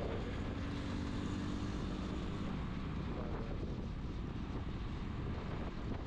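Steady road noise of moving traffic with wind on the microphone; a low, even engine hum stands out in the first couple of seconds.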